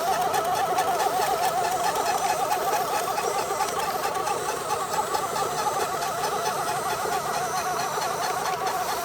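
Kubota DC-105X combine harvester running steadily, a continuous mechanical drone with fast, fine ticking.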